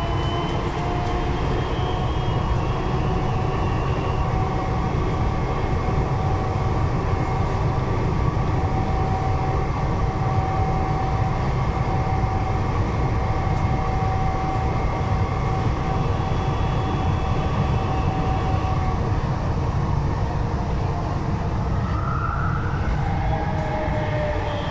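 Siemens VAL 208 rubber-tyred metro train running through a tunnel, heard from on board: a steady rumble with a constant whine. About three-quarters of the way through the whine fades, and near the end another tone rises.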